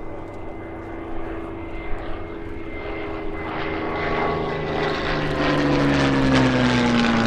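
Piston fighters' Rolls-Royce Merlin V12 engines, a steady propeller drone that grows louder as the aircraft close in, then drops in pitch from about five seconds in as they pass by.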